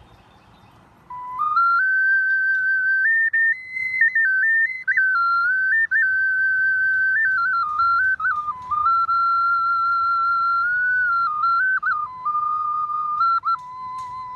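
Small five-hole pendant ocarina tuned to B minor pentatonic, playing a melody of clear, pure notes that step up and down, with a few brief breaks between phrases. It starts about a second in and ends on a long, lower held note.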